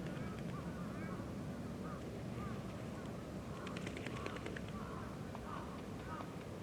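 A crow cawing harshly about halfway through, over a steady background of short chirping calls from other birds.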